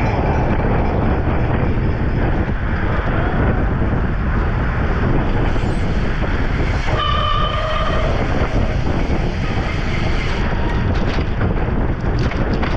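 Steady rush of wind on the microphone and tyre noise from a road bike racing on wet pavement. About seven seconds in, a brief horn-like tone sounds for about a second.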